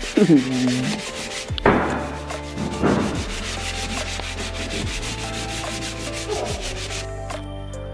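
Hand-sanding the wooden frame of a bentwood rocking chair: quick back-and-forth rubbing strokes, a few a second, as the old varnish is sanded off.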